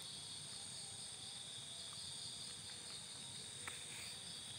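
Faint, steady chorus of night insects chirring in a forest, with one faint click a little before the end.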